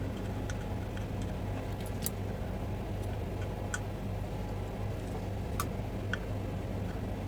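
Small irregular clicks and taps of hand tools working on a circuit board while a capacitor is soldered in, over a steady low hum.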